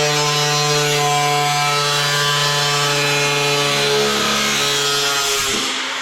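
Power grinder grinding and deburring the steel sheet metal of a custom motorcycle gas tank, a steady whine with a hiss, winding down with falling pitch near the end.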